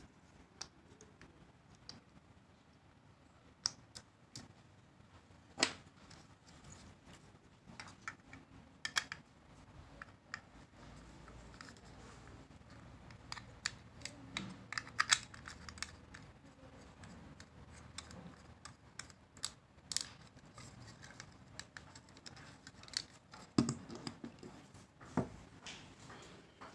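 Hard plastic parts of a GoPro Hero 5 dive housing clicking and tapping irregularly as they are handled and fitted together: the housing pushed into its mounting buckle and a thumbscrew slid through, with knocks of the case on a wooden table.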